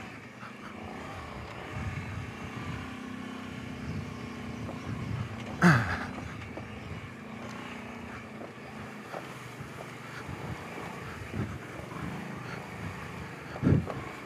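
Kawasaki Brute Force 750 ATV's V-twin engine running steadily at a low level while riding along the trail, with one brief louder burst about six seconds in.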